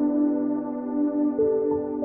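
Soft ambient background music: long held synthesizer chords that change every second or so.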